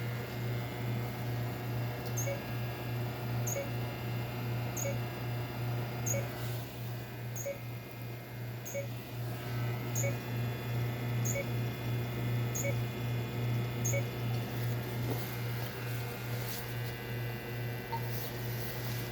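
Electrical equipment giving a steady low hum, with a short faint chirp repeating about every 1.2 seconds through the first two-thirds.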